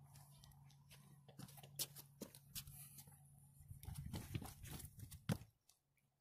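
Faint, scattered knocks and taps of a magnet-fishing rope being hauled hand over hand and handled on a floating dock, with shuffling steps on the deck, over a low steady hum. The sound drops out almost entirely near the end.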